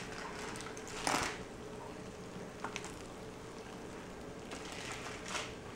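Metal tongs lifting broiled ribs off a hot baking tray and setting them on a ceramic platter: a few short scrapes and clatters, the loudest about a second in, a sharp click a little later and another scrape near the end, over a steady low hum.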